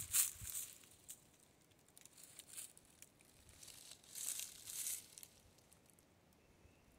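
Faint, scattered crunches of dry leaf litter underfoot, in a few short clusters with pauses between.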